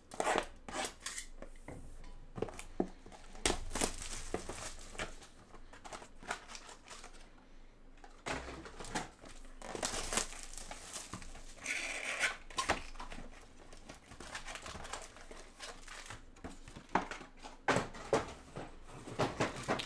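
Plastic shrink wrap crinkling and tearing as sealed Select basketball card boxes are unwrapped and opened by hand. Irregular taps and clicks of cardboard and card packs being handled and set down on the table.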